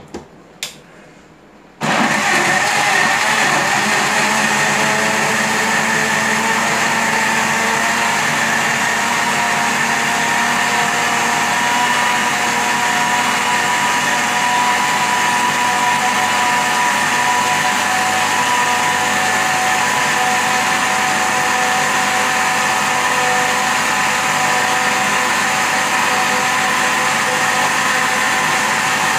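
Electric countertop blender: a click, then its motor starts suddenly about two seconds in and runs at one steady speed, puréeing a watery cucumber and yogurt smoothie.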